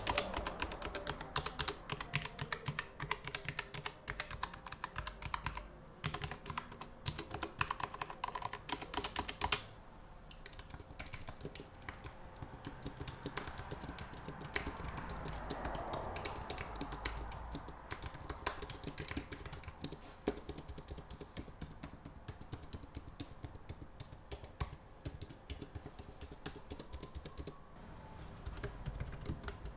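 Typing on an Akko 3084 mechanical keyboard with blue switches: a fast, uneven, continuous run of key clicks.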